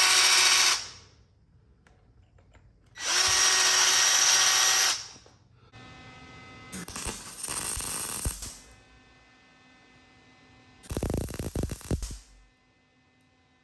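Power drill whining in two bursts, the second about two seconds long, as it cleans corrosion off a broken exhaust manifold bolt stub. A loud crackling burst follows near the end.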